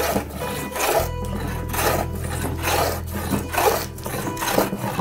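Scrub plane cutting across a wooden bench top in rapid, heavy strokes, about two a second, each a coarse rasping swish. This is scrubbing down the high spots to flatten the slab.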